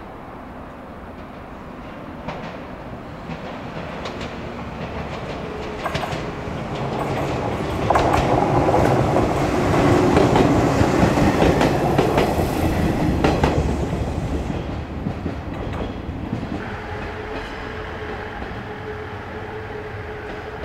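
Joshin Electric Railway 700 series electric train (ex-JR East 107 series) passing by, growing louder to a peak about eight to thirteen seconds in and then fading, with its wheels clacking over the rail joints. Later a steady hum with a held tone takes over.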